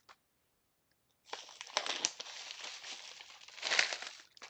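Plastic snack packaging crinkling as it is handled. It starts about a second in and runs as dense crackling, loudest near the end.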